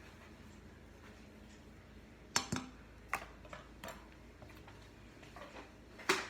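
Kitchen utensils clinking and knocking while dry ingredients are measured: several sharp taps, starting about two seconds in, the loudest one near the end.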